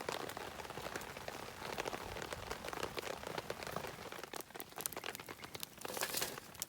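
Steady rain falling, with many sharp ticks and pops scattered throughout.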